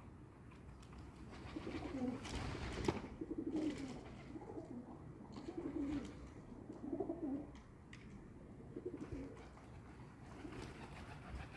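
Pigeons cooing, a low warbling coo repeated every second or so. About two and a half seconds in, a short rustling burst.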